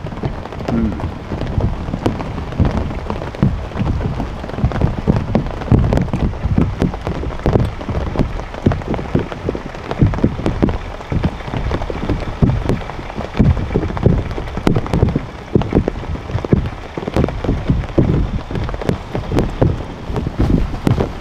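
Heavy rain falling, a dense patter of many sharp drop taps over a low, gusting rumble of wind.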